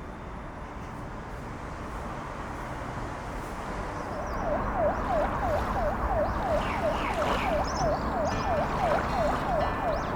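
A siren wailing in a rapid yelp, about three sweeps a second, starting about halfway through over a steady wash of background noise.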